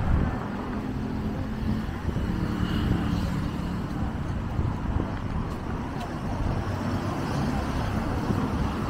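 Road traffic: cars and engines passing on a busy street, a steady rumble of engines and tyres.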